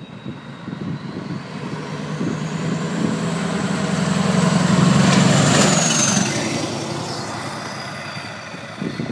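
Scania R-series V8 truck pulling a trailer drives past, its engine note growing louder as it approaches, loudest about five seconds in, then fading as it goes by. A faint high whine over it drops in pitch as the truck passes.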